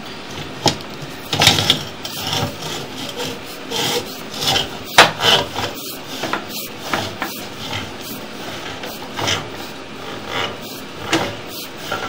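Drain inspection camera and its push cable being fed down a pipe: irregular scraping and rubbing with sharp clicks and knocks, over a steady hiss.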